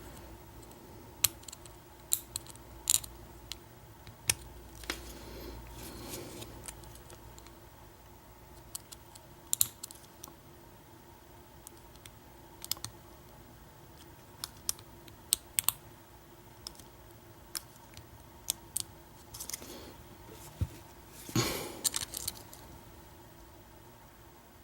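Lock picks clicking sharply and irregularly against the pins and keyway of a vintage American 700 padlock during picking, with a couple of brief soft handling rustles.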